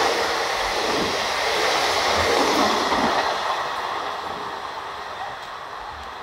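Passenger coaches of a train passing at speed, wheels running on the rails in a loud rush that fades steadily after about three seconds as the end of the train pulls away.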